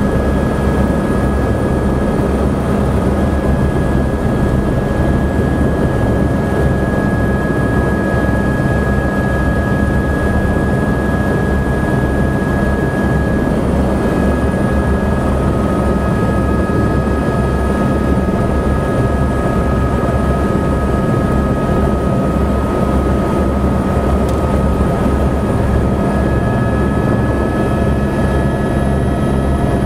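Tour helicopter's turbine engine and rotor running, heard from inside the cabin while it sits on the ground: a steady low rotor throb under a constant high turbine whine.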